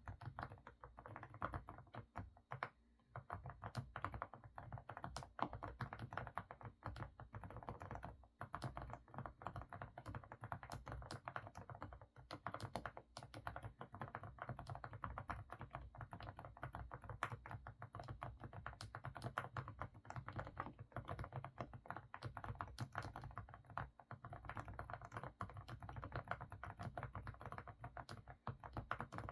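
Continuous fast typing on an AK68 mechanical keyboard with semi-silent Didimdol switches: a dense patter of full, muffled keystrokes, with brief lulls about three seconds in and again around eight seconds.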